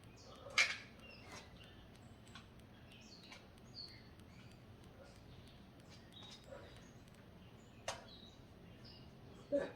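Three sharp clicks or knocks, about half a second in, near eight seconds in and at the very end, over faint, scattered high chirps.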